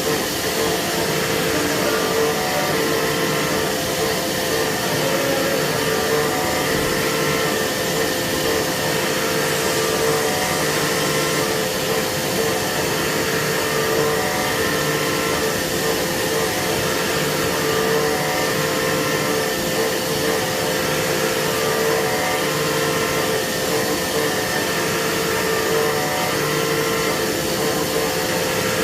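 CNC machine running steadily while machining a metal core-box mold: a constant whine over an even hiss.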